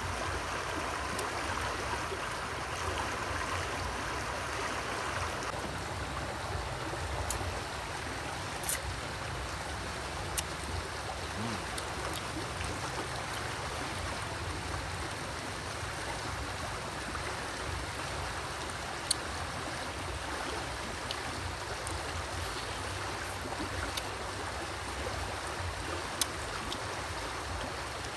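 Shallow river running over rocks, a steady rush of water, with a few short sharp clicks scattered through it.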